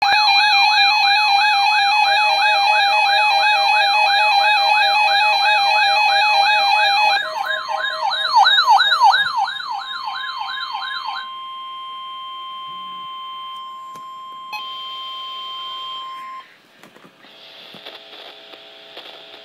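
A warbling electronic siren sweeping up and down about three times a second over steady tones. Partway through, the steady single-pitch warning alarm tone of NOAA Weather Radio joins it and outlasts it. The alarm tone cuts off suddenly about three-quarters of the way through, leaving faint radio hiss.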